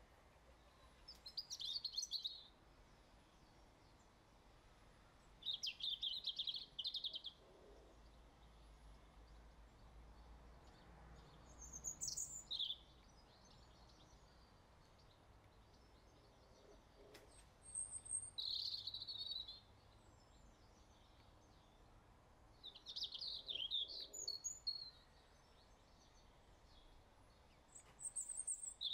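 A small bird singing faintly: short chirpy phrases, each a second or so long, repeated about every five or six seconds, with a few thin higher notes between them.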